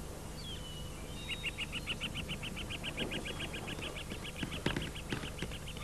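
A bird singing: a short chirp, then a fast, even trill of high notes, about ten a second, that fades toward the end. A few faint clicks sound in its later part.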